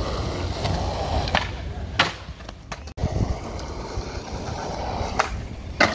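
Skateboard wheels rolling with a steady rumble, broken by several sharp clacks of the board striking the ground, the loudest about two seconds in and near the end.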